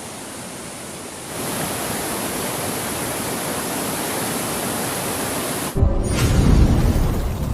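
Steady rushing of a waterfall, louder after about a second. Near the end it cuts off and a sudden deep whooshing boom takes over.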